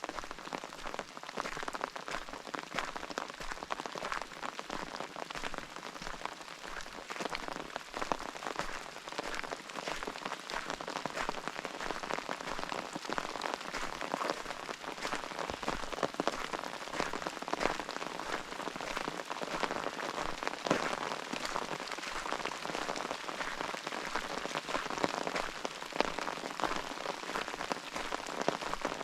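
Steady rain falling, with many separate drops ticking irregularly close by.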